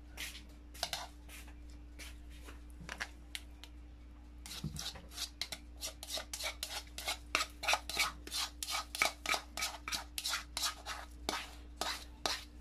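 A spoon scraping a creamy mayonnaise topping from a bowl and spreading it over rice in a foil-lined baking tray. A few scattered scrapes come first, then from about four and a half seconds in a quick run of short scraping strokes, about three or four a second.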